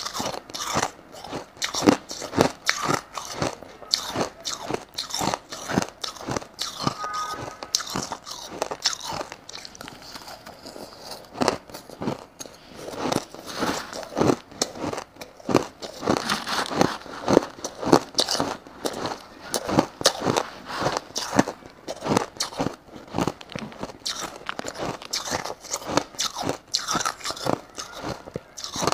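Close-miked crunching of crushed ice being bitten and chewed, sharp crunches coming several times a second, easing off for a moment about ten seconds in before picking up again.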